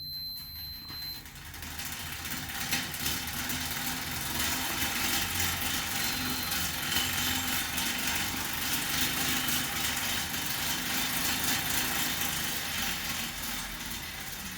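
Assault AirBike Classic fan bike being pedalled, its fan rushing air with a dense mechanical rattle over it. The rattle builds over the first few seconds as the pedalling picks up and eases a little near the end. It is a fault that adjusting the chain tension and fan cage has not cured.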